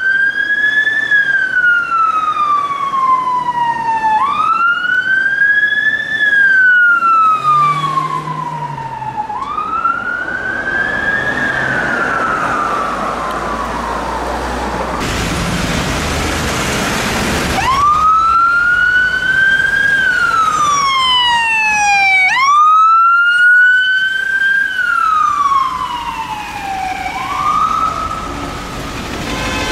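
Emergency vehicle wail sirens, each cycle rising quickly and then falling slowly about every five seconds: first a police Vauxhall Astra's siren, then, after a few seconds of rushing noise, a Mercedes-Benz Sprinter ambulance's siren.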